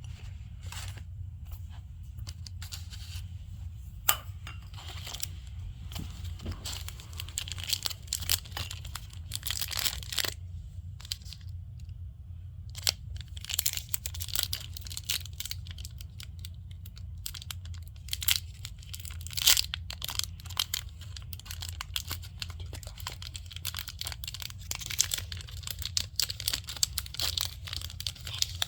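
Plastic packaging being torn open and crinkled by hand: irregular crackling with a few sharper snaps and a short lull about halfway through, over a steady low hum.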